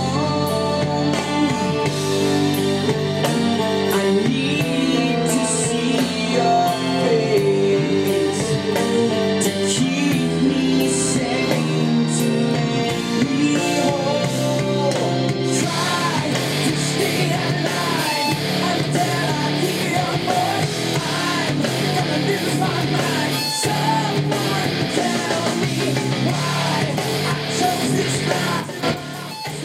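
Rock music with electric guitar and singing played back through Technics SB-F1 mini monitor speakers; about halfway through it turns denser and heavier.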